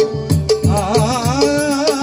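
Devotional bhajan music in a gajar: steady hand-drum strokes about three a second, with a wavering sung note entering under a second in.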